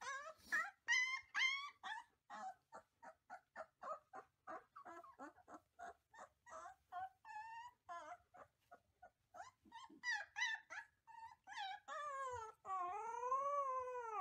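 A pup howling: a quick run of short, high yips and whimpers, then longer calls and one long howl that rises and falls near the end.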